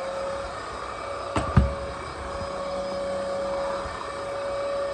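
ORFELD cordless stick vacuum cleaner running with a steady motor whine as its electric brush head is pushed over carpet. Two sharp knocks come about a second and a half in.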